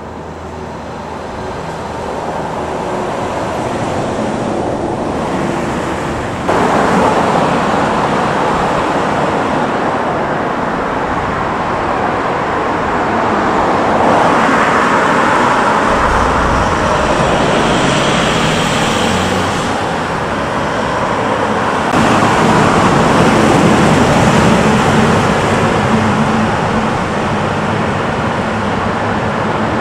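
Road traffic: cars driving past on a multi-lane road, a steady wash of tyre and engine noise that swells as vehicles go by, with abrupt jumps in level, the first about six seconds in.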